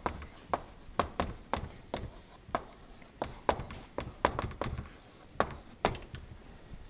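Chalk writing on a chalkboard: a string of sharp, irregular taps, two or three a second, as the letters are struck onto the board. The tapping stops about a second before the end.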